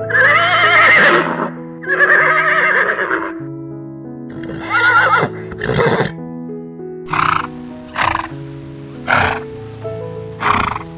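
An equine animal whinnying: two long wavering calls, a third midway, then a run of short repeated calls about one a second. Background music with sustained notes plays underneath.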